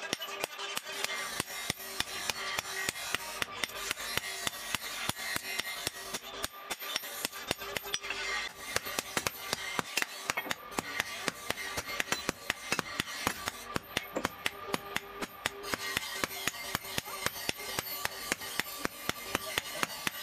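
Hand hammer striking a red-hot steel knife blade, forged from an engine gear, on an anvil: a steady rhythm of about three blows a second as the blade is drawn out.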